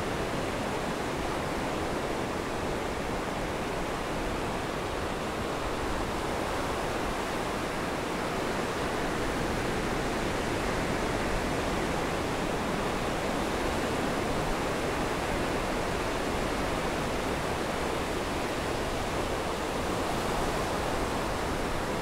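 Rough storm surf breaking and washing around the wooden pilings of a pier: a steady rush of waves with no let-up, swelling slightly about halfway through.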